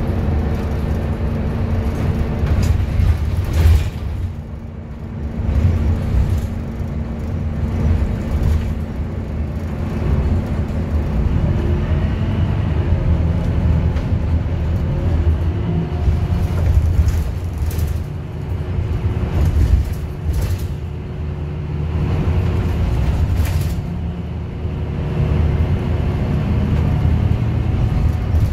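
Ride noise inside a moving Transjakarta bus: a steady low rumble from the drive and the road, with occasional knocks and rattles from the body. The rumble eases briefly a few times.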